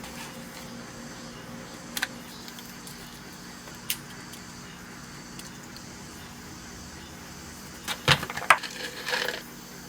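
Small items clicking while a cat's medicine is being made up: two single sharp clicks, then a short burst of clatter about eight seconds in, over a steady low hum.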